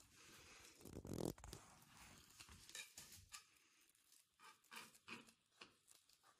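Faint, short strokes of a fillet knife slicing through raw trout flesh against a plastic cutting board, with a brief louder handling sound about a second in and a run of quick cuts in the second half.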